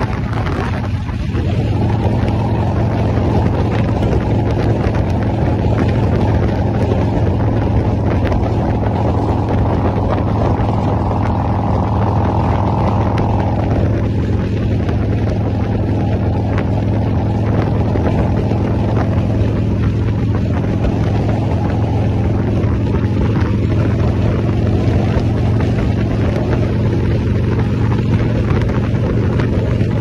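Cruiser motorcycle engine running steadily at highway cruising speed, with wind rushing over the microphone. A higher hum drops away about halfway through.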